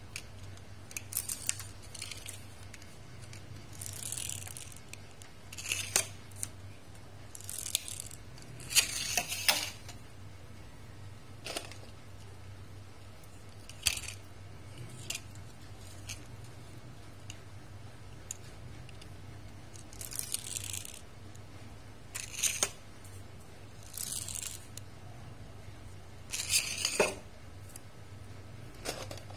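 Small toy cars rolled and set down on a hard stone floor: scattered clicks of the cars touching down and knocking together, and brief rasping whirs, each about half a second long, as their small wheels spin and roll. A faint steady low hum lies underneath.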